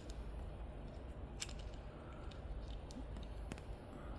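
A few light, sharp metal clicks as small steering column ignition lock parts (key cylinder, actuator gear) are handled and turned, over a steady low hum.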